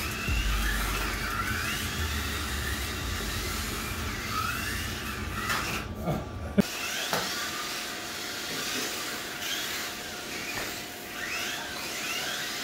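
Small electric motors of Mini-Z-class RC cars whining in repeated rising and falling sweeps as the throttle is worked. A sharp knock about halfway through.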